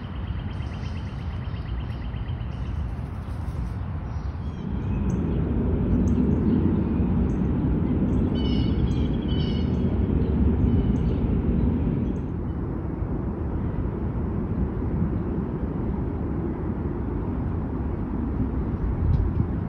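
Outdoor ambience: a steady low rumble, louder for a stretch in the middle, with a fast ticking trill near the start and several short bird chirps through the first half or so.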